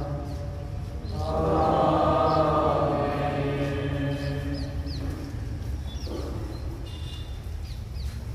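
Liturgical chant: a single voice sings a long, held line from about one to four seconds in. Small birds chirp through the second half, over a steady low hum.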